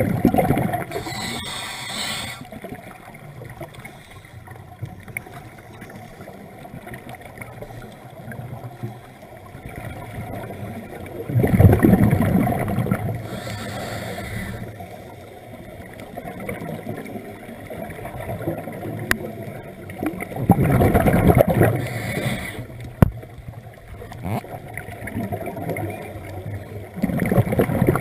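Scuba regulator breathing underwater: a loud rush of exhaled bubbles comes four times, roughly every nine seconds. Quieter steady underwater noise fills the gaps, with a brief hiss after some of the bursts.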